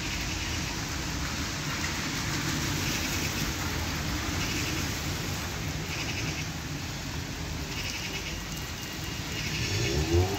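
Steady rain falling on a wet street, with traffic in the background. Near the end a short wavering tone comes through.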